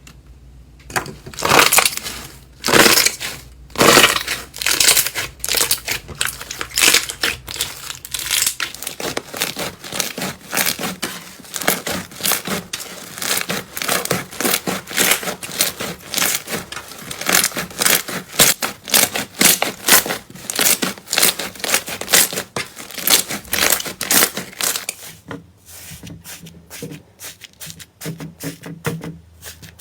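Slime being handled, making a dense run of crackles and pops; it goes quieter and sparser near the end.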